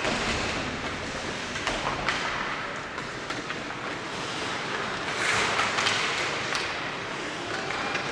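Ice hockey play in an arena: a steady hiss of skates on the ice with scattered sharp clacks of sticks and puck, and a louder swell of hiss about five seconds in.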